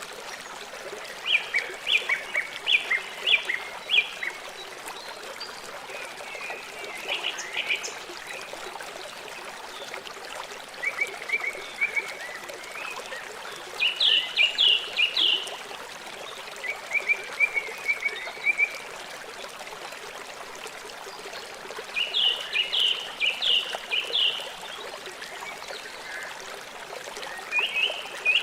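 River water running steadily, with an animal calling over it in about seven short bursts of rapid chirps, each burst lasting a second or two.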